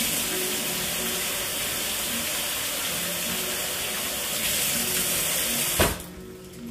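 Kitchen tap running into a stainless steel sink, water splashing over asparagus spears as they are rinsed, a steady rush. Near the end there is a sharp thump and the water cuts off.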